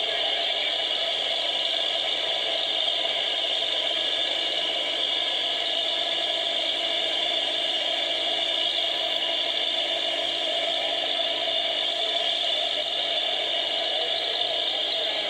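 1970 Chevrolet pickup doing a burnout: the engine held at steady high revs while the tyres spin in place. It comes through as a steady, even noise with little bass.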